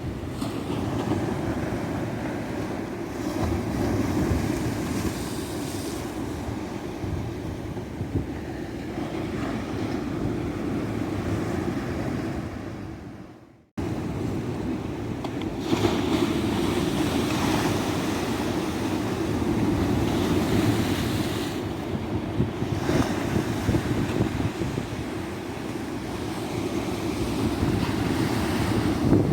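Ocean surf washing and breaking on a beach in slow, steady swells. About halfway through, the sound fades out to silence for a moment and then cuts back in suddenly.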